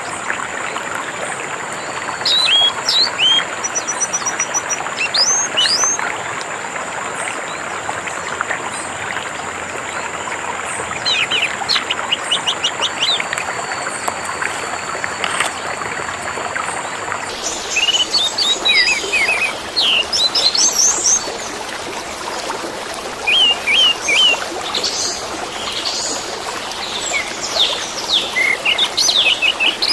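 Orange-headed thrush singing over steadily running water. The song comes in repeated bursts of quick, high, sweeping notes every few seconds. About halfway through, the background changes and a thin steady high tone drops out, as at a splice in the recording.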